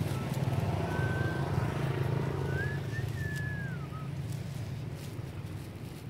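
A motor vehicle's engine running steadily as a low hum that slowly fades, with a few thin whistled calls that rise and fall in pitch about a second in and again around the middle.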